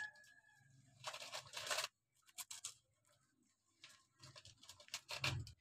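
Plastic toy excavator's bucket scraping and scooping dry sandy soil: short gritty scrapes in several bursts, one about a second in and a louder cluster near the end.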